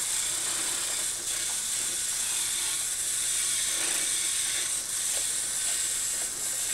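Battery-powered Geotrax toy train running along plastic track, its small geared motor giving a steady mechanical whir.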